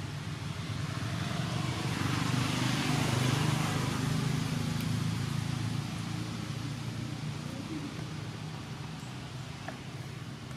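A motor vehicle passing: a low engine hum with a rush of road noise that swells about two to four seconds in, then slowly fades.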